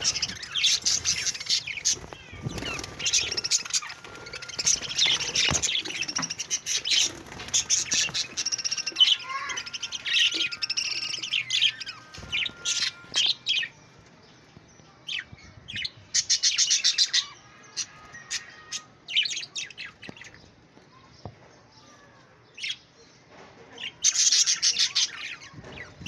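Budgerigars chirping and warbling: dense, rapid chatter for about the first thirteen seconds, then short bursts of chirps separated by quieter gaps.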